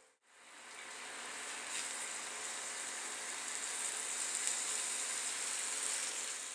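Ribeye steaks sizzling on a ridged grill pan over a gas burner turned up high: a steady hiss that grows a little louder about two seconds in.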